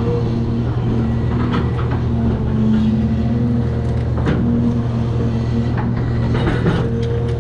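Caterpillar 336 excavator's diesel engine running steadily under work, with a whine that comes and goes as the hydraulics load up, and a few sharp cracks of demolition debris.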